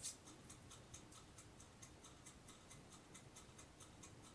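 Near silence with a faint, even ticking of about four ticks a second, and a small click right at the start.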